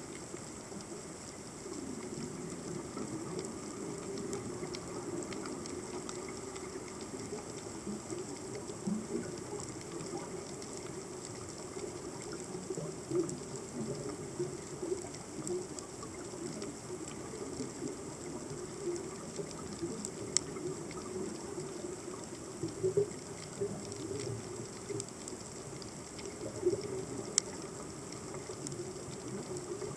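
Underwater ambience picked up by a submerged camera: a steady low rush of water, with a few sharp clicks standing out about twenty seconds in, again about seven seconds later, and at the very end.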